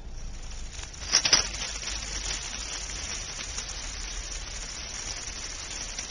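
Diet Coke and Mentos eruption from a 2-liter bottle: a sudden loud spurt about a second in as the soda shoots out, then a steady fizzing, spraying hiss as the foam keeps gushing from the bottle mouth.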